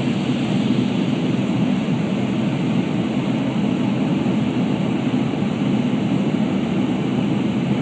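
Airliner cabin noise on the approach to landing: a steady, low rushing of engines and airflow heard from inside the passenger cabin.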